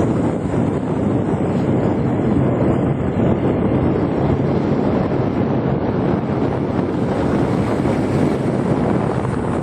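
Steady wind rush buffeting the microphone while riding, over the constant low running noise of the vehicle and road, with no change in pace.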